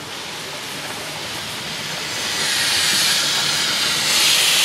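Steam hissing from a small industrial tank steam locomotive standing in steam. It grows louder about halfway through and louder again near the end.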